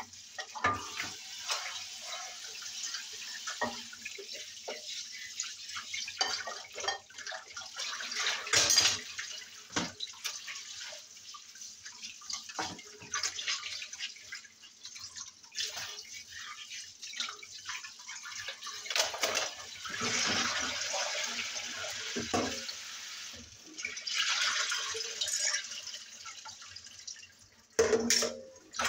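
Kitchen tap running into a sink on and off while dishes are washed, with scattered knocks and clinks of dishes and utensils.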